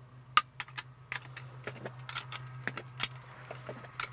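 Irregular light metallic clicks and clinks of a spanner working the nuts on a steel handbrake cam bracket as it is tightened down, the sharpest clink about half a second in. A faint steady low hum runs underneath.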